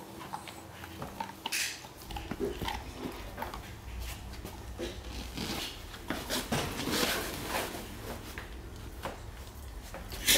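Dogs playing and gnawing a rawhide chew in a wire crate: irregular chewing, rustling on the bedding and small knocks, with a sharp knock at the very end.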